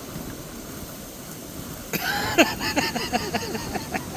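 A man laughing in a quick run of short bursts that starts about halfway through, over a steady background rush.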